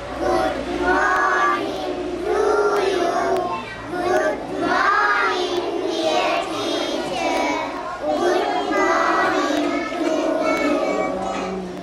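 A group of schoolchildren singing together, a welcome song in phrases with short pauses between them.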